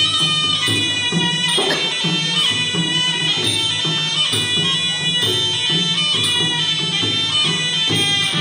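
Traditional Kun Khmer ringside boxing music: a sralai reed oboe plays a continuous melody over a steady drum beat.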